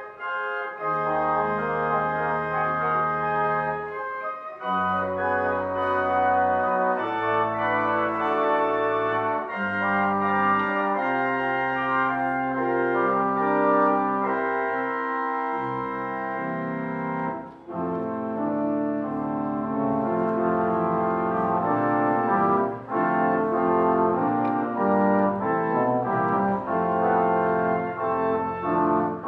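Organ music: sustained full chords over a bass line that steps from note to note, with brief breaks about four seconds in and again past the middle.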